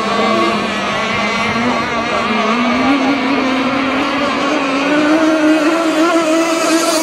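Radio-controlled racing catamarans running at full speed, their small motors giving a high buzzing note that rises in pitch about two seconds in and then holds steady.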